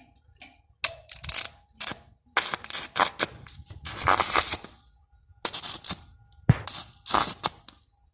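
Irregular metal scrapes and knocks as an electric gate lock is worked into the round hole cut for it in a steel gate, with one sharp knock about six and a half seconds in.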